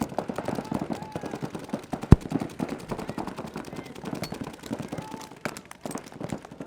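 Several paintball markers firing rapid strings of shots at once, a dense stream of quick pops. About two seconds in there is one much louder sharp crack, a single close shot or impact.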